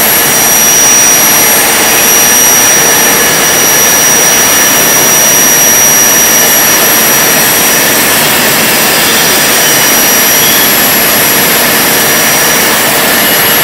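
CNC machine cutting, a loud steady rushing noise with a constant high-pitched whine over it that holds unchanged throughout.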